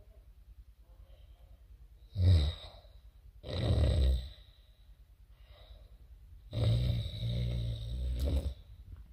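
A man snoring in his sleep: three loud snores, a short one about two seconds in, another about a second later, and a longer drawn-out one near the end.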